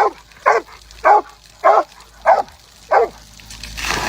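A dog barking in a steady rhythm, about one bark every half second, six barks, stopping about three seconds in. A rushing noise then rises near the end.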